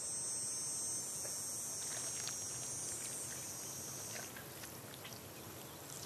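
Steady high-pitched insect chirring that stops about four seconds in, leaving a faint outdoor hiss, with a few soft clicks around the middle.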